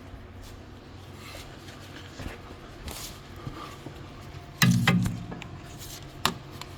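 Hand work on a car's rear brake caliper: scattered faint clicks and clinks of tools and parts, with one louder short clatter about two-thirds of the way through.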